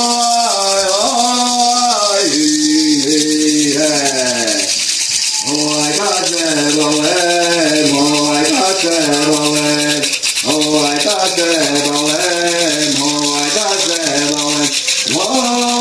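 Voices singing a Jurema ritual chant in phrases of a few seconds each, with short breaks between them. A maracá rattle is shaken steadily all through.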